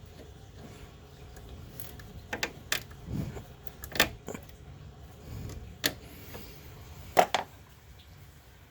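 Hand tools and metal parts clicking and clinking as radiator lines are worked on: a handful of separate sharp knocks, the loudest near the end.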